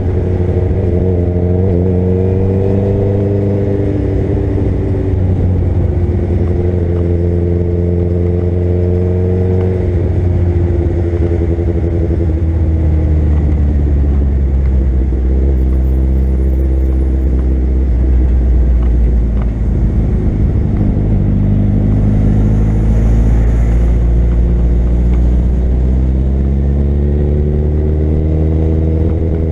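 Suzuki Hayabusa's inline-four engine under way, its pitch climbing and then falling back again and again as the rider rolls on and eases off the throttle, over a heavy low rumble.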